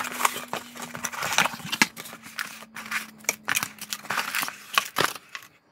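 Smoke alarm packaging being handled and opened: an irregular run of crinkling, scraping and sharp clicks that stops about five seconds in.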